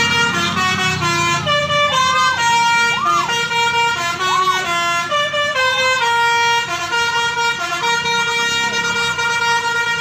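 Tour bus's multi-tone telolet (basuri) horn playing a melody: a run of loud held notes that step up and down in pitch, one after another.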